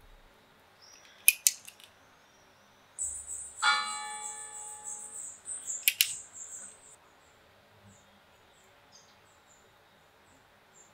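A bell struck once about a third of the way in, ringing out and fading over about a second and a half against a steady high trill. Sharp clicks come a second before it and again just after, and faint high chirps follow near the end.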